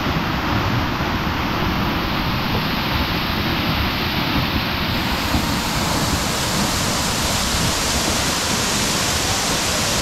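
Loud, steady rush of a powerful waterfall close by, running high and strong because of recent rain. The hiss grows brighter about halfway through.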